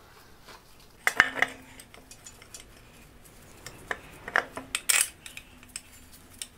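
Light metallic clinks and taps of bolts and hand tools against an LS V8's front cover while a water pump is bolted on: a few clinks about a second in, then another cluster around four to five seconds in.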